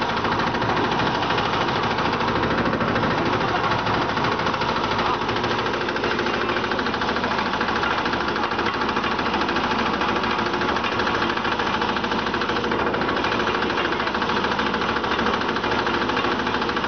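TRUEMAX JZ350E concrete mixer running steadily: a continuous mechanical drone from its drive and turning drum, with a fast, fine rattle.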